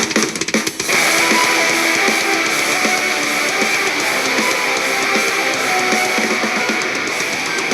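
Instrumental passage of a rock song, electric guitar and drums, played back through a smart speaker.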